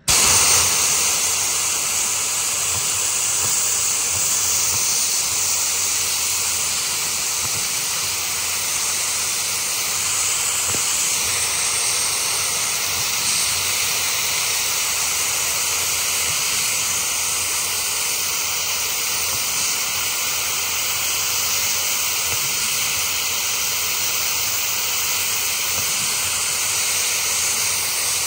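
Sandblaster blasting abrasive against an aluminum fuel tank, a steady hiss that cuts in abruptly, stripping corrosion out of the pitted metal around an old welded patch.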